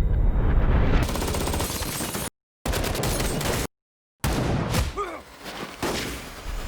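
Rapid automatic gunfire in dense bursts, cut off abruptly twice by moments of dead silence, then a few scattered sharper shots.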